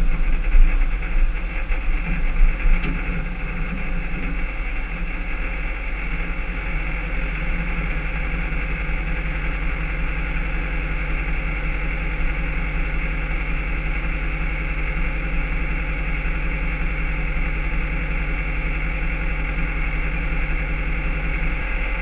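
Tow truck's engine idling steadily, with a few louder surges in the first three seconds.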